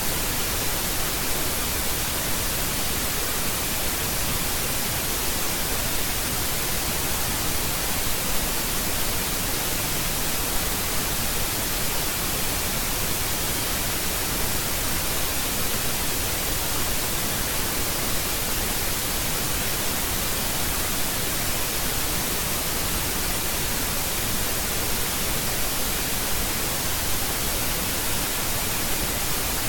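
Steady, even hiss of static from the recording's microphone or sound input, with no other sound standing out.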